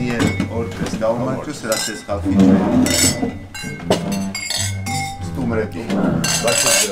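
Wine glasses clinking together in a toast: several light clinks that ring briefly, over a group's overlapping voices.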